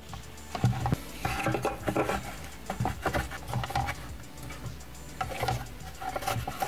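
Black 3D-printed plastic parts being handled and fitted against a wooden enclosure frame: irregular rubbing, scraping and light knocks, busier from about half a second in.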